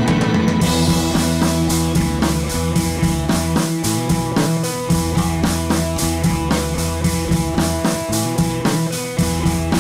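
Background music with drums keeping a steady beat over held instrumental tones.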